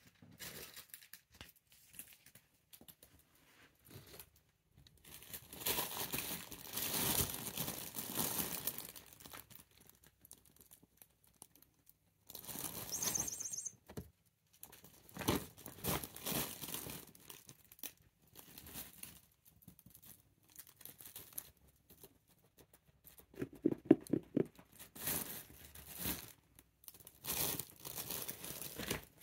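A rabbit rummaging among plastic and paper shopping bags, crinkling and rustling them in several separate bouts with quiet gaps between, and a quick run of sharp knocks about three-quarters of the way through.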